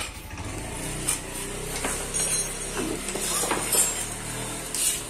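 Several sharp clicks and knocks as the plastic front body panel of a Honda Vario 150 scooter is handled, over a low vehicle engine rumble that fades about a second and a half in and drops further past the middle.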